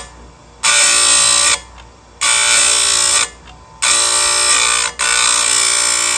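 Chainsaw chain grinder's spinning abrasive wheel grinding the steel cutter teeth, one tooth at a time. It makes four loud, shrill, whining passes, the last one longer, with short quieter gaps between them as the wheel is lifted off.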